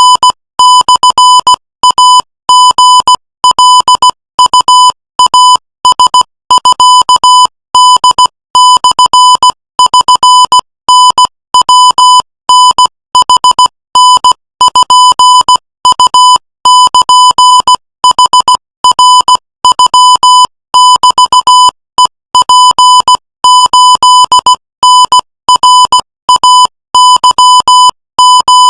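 Morse code sent at 18 words per minute: a single high, steady beep keyed on and off in short dots and longer dashes, with brief gaps between characters and words.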